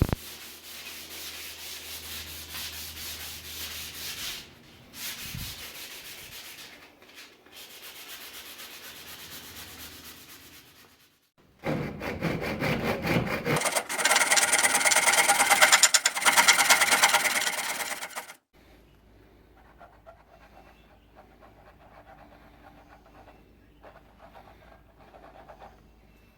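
Abrasive grinding on steel, in several passes that stop and start, with the longest and loudest pass in the middle of the stretch; a low motor hum runs under the first pass.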